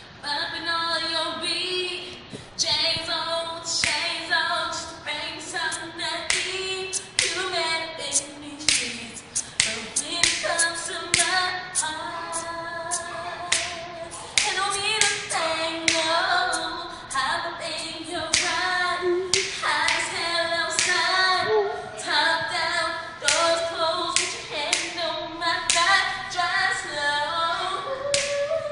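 A cappella song: layered voices singing melody and harmony over a steady beat of claps and clicks.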